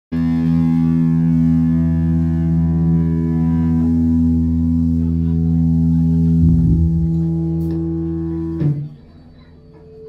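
A live band's amplified instruments, mainly electric guitar, hold one steady chord for about eight and a half seconds, then cut off sharply. After the cut only faint stage and room noise is left.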